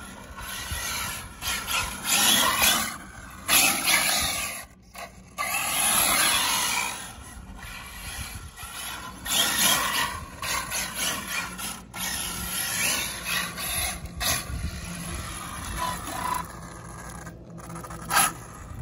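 Arrma Felony 6S brushless RC car driving on asphalt: its electric motor and drivetrain whine, rising and falling in pitch in repeated surges as it speeds up and slows, with tyre noise on the road.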